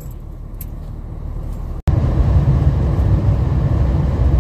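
Steady road and engine noise of a car driving at highway speed, heard from inside the cabin. It starts abruptly about two seconds in, much louder than the quieter low cabin hum before it.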